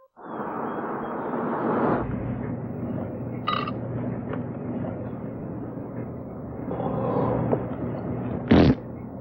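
Steady road noise inside the back cabin of a moving car, with a brief high clink about three and a half seconds in. Near the end comes one short, loud squirt of mustard from a squeeze bottle.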